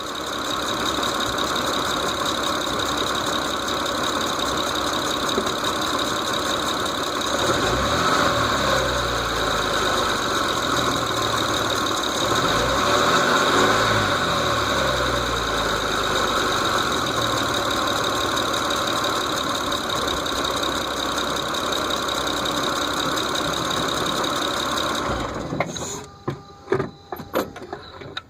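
Mitsubishi Eclipse GT V6 engine running with the ticking noise the owner is trying to track down. The revs rise and fall twice about a third of the way in. The engine shuts off near the end, followed by a few sharp clicks.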